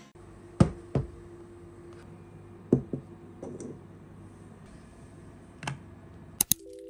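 A handful of separate sharp clicks and taps, irregularly spaced over several seconds, with a quick double click near the end: small objects being handled and set down on a hard surface.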